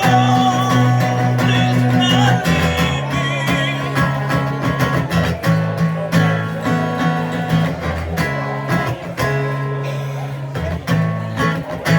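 Instrumental music: acoustic guitar playing over a sustained bass line, with a wavering lead line weaving above.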